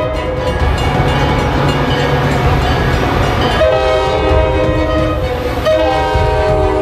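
Rumble of a moving train, then a train horn sounding a chord of several notes: one long blast about three and a half seconds in, and a second blast after a short break.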